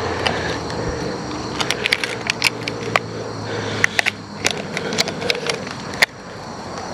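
Irregular clicks and light rattles of handling while a bass is weighed on a fish scale, over a low steady hum.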